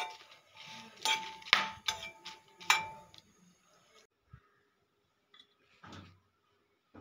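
A spoon clanking against a frying pan several times while dry red chillies are stirred and roasted, each strike ringing briefly.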